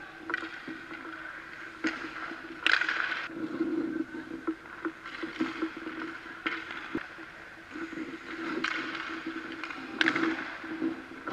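Hockey goalie's skate edges scraping and carving the ice in a series of short pushes and stops, with his leg pads sliding on the ice as he drops and recovers. The loudest scrape comes about three seconds in. A steady low hum runs underneath.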